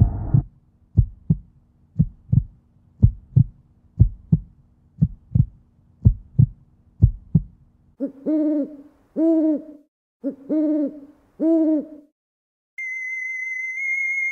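Spooky Halloween sound effects: paired low thumps about once a second, like a heartbeat, then four hoots like an owl's, each about half a second long. Near the end a high, wavering theremin-like electronic tone comes in.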